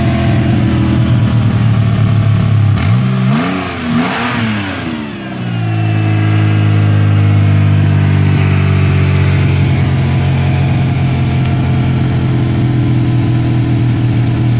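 Car engine idling during its first warm-up after a new radiator install, blipped twice in quick succession about three seconds in, the pitch rising and falling each time, then settling back to a steady idle.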